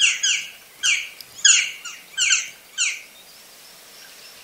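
Black woodpecker calling: a series of short, falling, ringing notes, about five of them a little over half a second apart, stopping about three seconds in.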